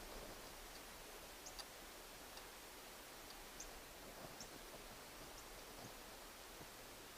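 Near silence, with a handful of faint, short, high ticks scattered irregularly.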